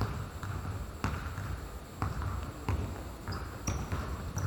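Basketball bouncing on a hard court with an uneven thump about once a second, and a few short high squeaks in the second half.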